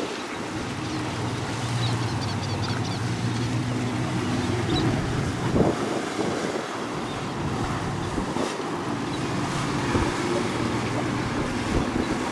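Motorboat engine running steadily as a boat passes, strongest in the first half and then fading, with gusty wind buffeting the microphone.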